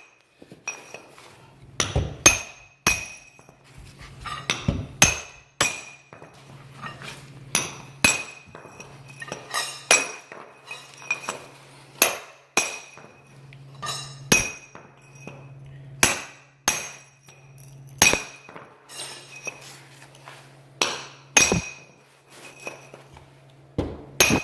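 Small sledgehammer striking a large steel chisel held against the concrete, a long series of sharp metallic blows with a short ring after each, knocking embedded nails out of a concrete slab. The blows come in uneven runs, about one every half second to a second.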